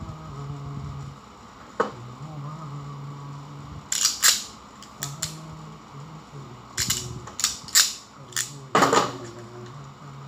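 Sharp plastic clicks and snaps from parts being handled on an elevator control board, a cluster about four seconds in and several more from about seven to nine seconds in, over a person humming low notes.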